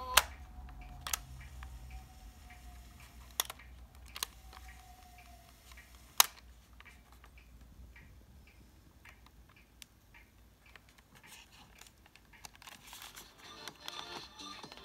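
Philips AQ-6588 portable cassette player's mechanical tape keys clicking: a sharp click as playback stops, then four more key clicks over the next six seconds. Under them is a faint whine that slowly falls in pitch, the tape winding, and faint music returns near the end.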